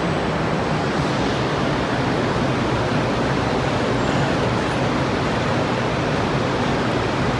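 Steady roar of heavy rain mixed with the rush of the Rhine Falls, an even wash of noise with no breaks.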